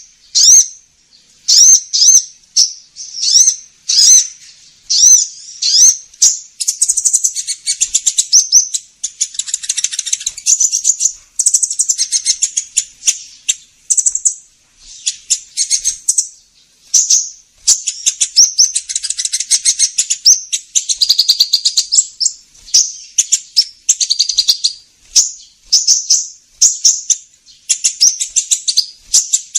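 Sunbird lure call: high-pitched, sharp chirps repeated in quick series, breaking at times into longer rapid twittering trills.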